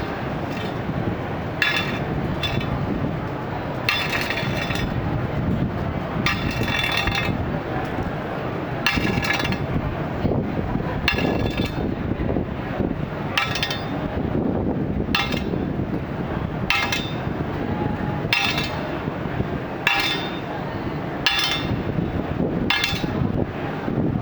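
Steel bars clanking, struck again and again every second or two, several strikes ringing on for up to a second, over a steady low background rumble.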